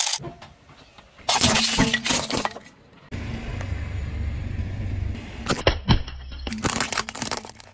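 A car tyre rolling over and crushing plastic toys and small plastic containers: bursts of crunching and cracking plastic about a second in and again near the end, with a low rumble of the rolling car between them and two sharp snaps.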